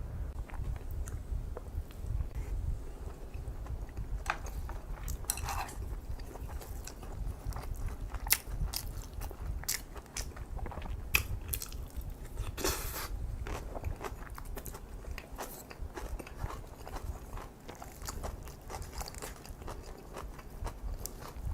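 A person eating kimchi fried rice with kimchi: wet chewing with frequent mouth clicks and a few louder crunches.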